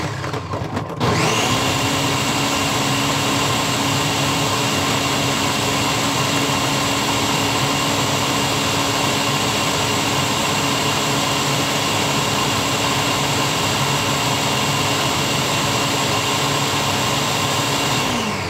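Countertop blender running at high speed, blending a full jar of watermelon into juice. The motor cuts out right at the start, starts again about a second in and runs steadily, then winds down in falling pitch near the end.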